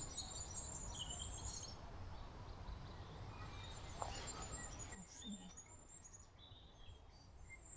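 Small birds chirping faintly, high-pitched twitters mostly in the first two seconds and sparser later, over faint outdoor background noise.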